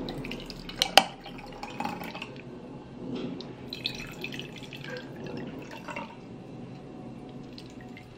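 Cold brew coffee poured from a pitcher over ice into glass mason jars: a steady trickling stream, with a few sharp glassy clinks in the first second or so.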